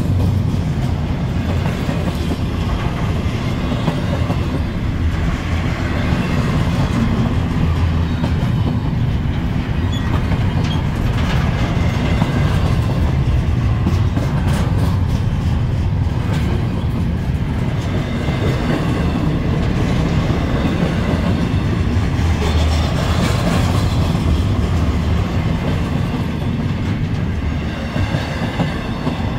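Double-stack intermodal freight train's well cars rolling past close by: a steady rumble of steel wheels on rail with repeated clickety-clack as the wheel trucks pass over rail joints. It gets a little quieter near the end as the last cars go by.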